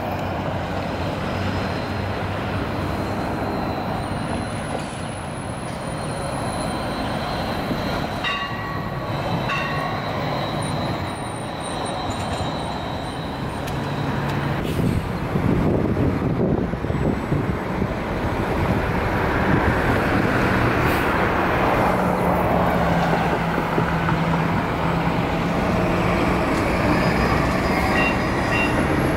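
City street traffic with a battery-powered streetcar and articulated electric trolleybuses rolling past. Two short ringing tones come about eight and nine and a half seconds in, and the traffic grows louder in the second half.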